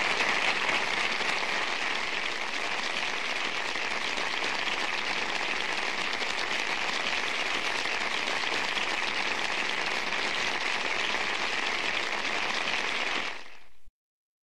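Sitcom audience applause, a steady dense clapping that fades and cuts off abruptly near the end.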